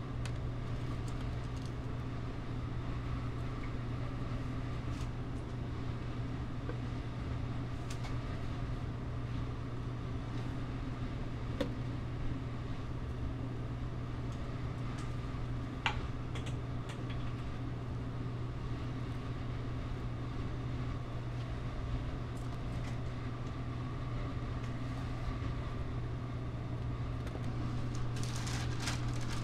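Steady low hum of kitchen ventilation or equipment running, with a few light clicks of utensils.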